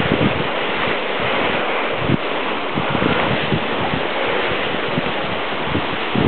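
Steady rushing hiss of short firngliders sliding over hard, crusty snow on a steep slope, with irregular low gusts of wind buffeting the microphone.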